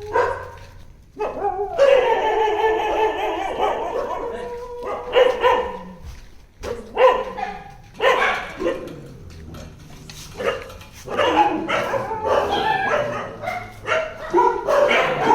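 A dog barking, yipping and whining over and over, with one long drawn-out cry about two seconds in and a run of shorter calls in the second half.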